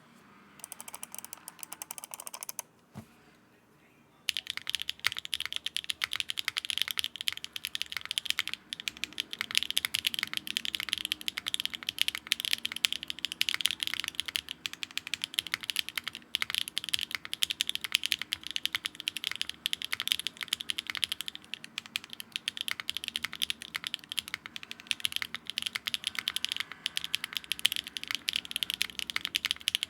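Fast continuous typing on a Neo65 mechanical keyboard with Akko x HMX Mirror switches (the high-clack version), a carbon fiber plate, no foam and GMK keycaps, starting about four seconds in. A short rush of noise comes before it in the first couple of seconds.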